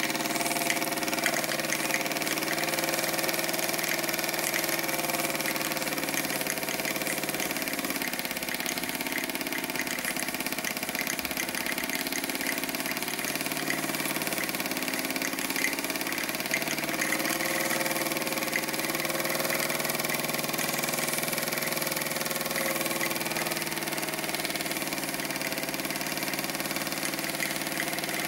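Bowman PW201 live-steam stationary model engine running steadily under steam, a fast even beat of exhaust and mechanical clatter at a constant level.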